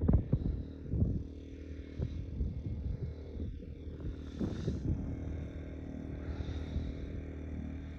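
Boat motor running steadily under way, a low even drone, with a few louder thumps and splashy noise scattered through it.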